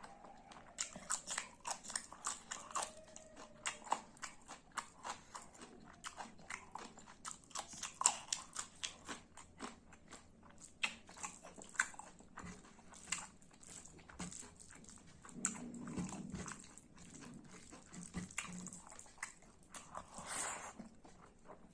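Close-miked chewing and biting of pork and boiled vegetables, with many short, irregular wet clicks and crunches of mouth and teeth.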